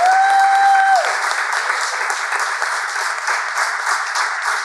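Applause from a small audience, dense clapping throughout. A single high note rises in at the start, is held for about a second, then falls away over the clapping.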